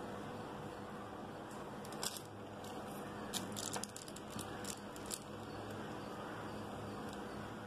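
Faint crinkling and clicking of butter paper as a plastic pizza cutter rolls through scone dough, with scattered clicks mostly in the middle, over a steady low hum.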